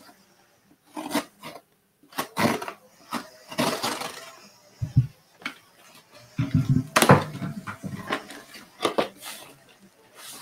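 Cardboard shipping box being handled and opened: rustling and scraping with repeated short knocks.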